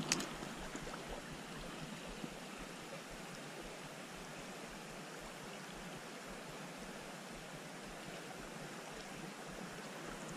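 Shallow stream running over a stony bed: a steady, even rush of water, with one brief knock right at the start.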